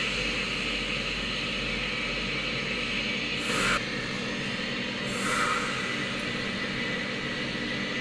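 Small oxygen-gas torch flame hissing steadily while it heats an aluminium air-conditioning condenser tube for brazing a pinhole leak, briefly louder twice near the middle.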